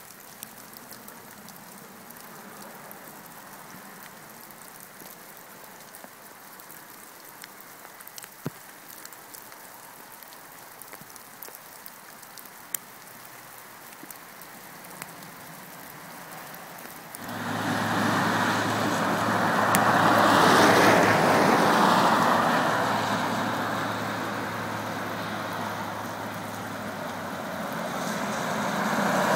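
Faint steady outdoor hiss with a few scattered small ticks. About two-thirds of the way in this gives way suddenly to much louder traffic on a wet road: engine hum and tyre hiss swelling as cars go by, rising again near the end as a car approaches.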